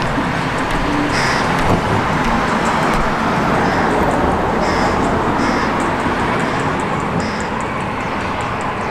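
Steady road traffic noise, with short high bird calls breaking through about half a dozen times.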